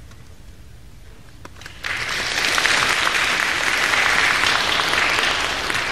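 Audience applauding, breaking out suddenly about two seconds in after a quiet moment and carrying on steadily as a dense patter of many hands clapping.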